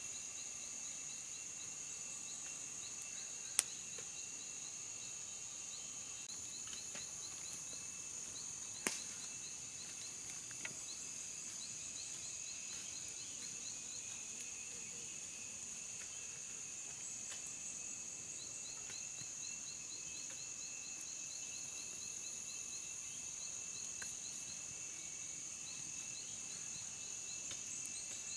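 Forest insects buzzing steadily at a high pitch, with runs of rapid high chirps coming and going. Two sharp clicks stand out, a few seconds in and about nine seconds in.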